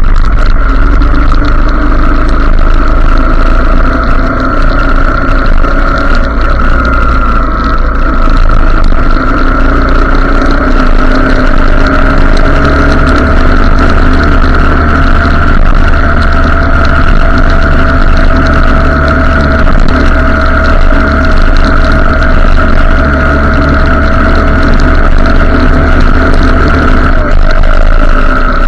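Motorcycle engine running under way, its pitch drifting slowly with speed, over heavy wind rumble on the microphone.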